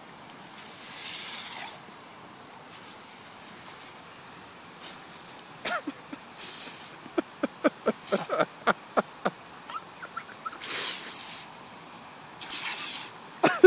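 Boxer puppy biting and snapping at a lawn sprinkler's water jet: short breathy bursts from its nose and mouth, and a quick run of squeaky sounds, two or three a second, from about six to nine seconds in.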